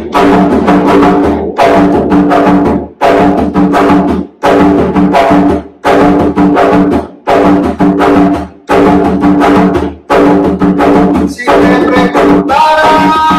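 Hand-played bomba barrel drum beating out the cuembé rhythm of Puerto Rican bomba: ringing open tones and sharp strokes in a phrase that repeats about every one and a half seconds.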